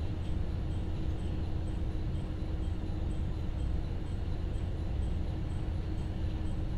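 Interior of an IRT355 diesel railcar rolling slowly along a station platform to a stop: a steady low rumble of the engine and running gear, with a faint steady hum.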